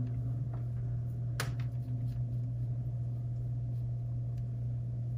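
Steady low room hum with a faint steady higher tone above it, and one sharp click about a second and a half in.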